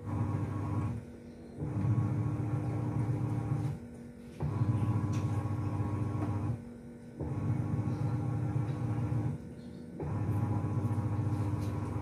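Sharp ES-F950P-GY single-tub top-loading washing machine agitating: the pulsator motor hums for about two seconds, pauses briefly, then runs again, about five strokes in all. It runs smoothly, with no scraping, now that the coin that had been rubbing under the pulsator has been removed.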